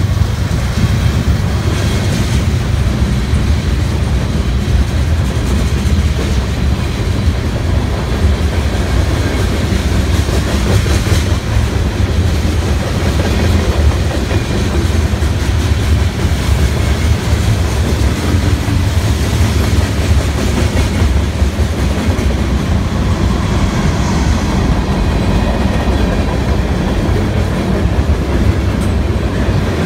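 Freight train cars rolling past at close range: the steel wheels on the rails make a steady, loud rumble.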